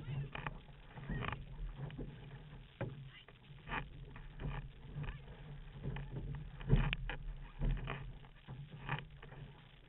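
Water splashing and slapping against the hull of an outrigger canoe under way, in irregular splashes about once a second with the paddle strokes, over a steady low rumble.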